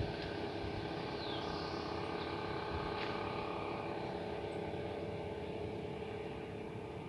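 Engine brake (jake brake) of a heavily loaded Hino 700 truck holding it back on a steep downhill, a steady drone of evenly pitched tones that fades a little toward the end.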